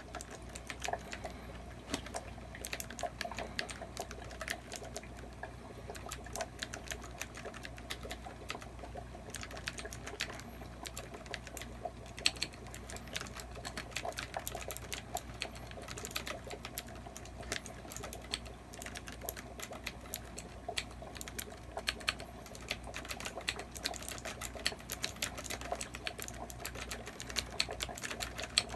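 Typing on a handmade keyboard: a fast, uneven stream of key-switch clicks and clacks as the keys are pressed.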